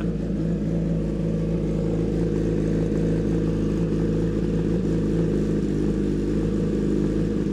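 Kawasaki ZX-10R inline-four engine idling steadily through an aftermarket headerback exhaust with a short carbon-tipped muffler. It holds an even, unchanging note and sounds aggressive even at idle.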